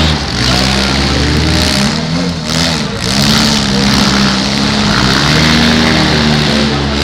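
Demolition derby compact cars' engines revving, their pitch rising and falling over and over as the drivers work the throttle.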